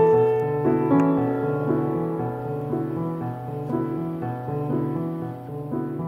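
Background music: a piano playing slow, sustained notes over a steady repeating bass line, with a loud note struck at the start.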